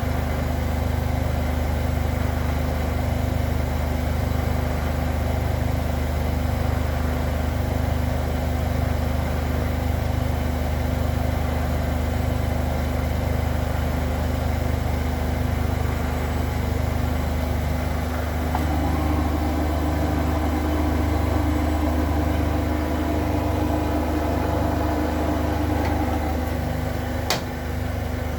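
Zanker EFX 4875 front-loading washing machine in its final spin, the drum turning at high speed with a steady, loud hum and a pulsing undertone. About two-thirds of the way in, a higher steady tone joins for several seconds, and there is one sharp click near the end.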